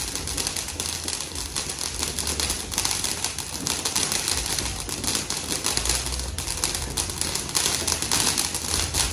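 A ground firework fountain burning in the street, giving a continuous dense crackle of sparks over a hiss.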